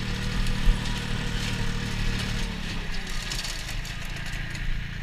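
Compact tractor engine running steadily while driving a flail mower through nettles and undergrowth, with a rough crackling hiss of cut vegetation over the engine drone. The engine note shifts slightly about halfway through.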